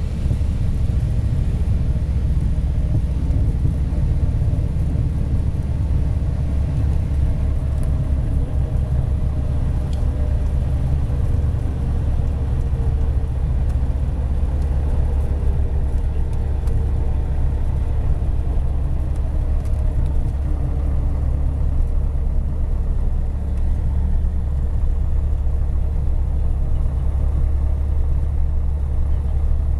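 A Piper Warrior's four-cylinder Lycoming engine and propeller run at low power, heard from inside the cockpit as a steady low drone during the landing rollout on the runway.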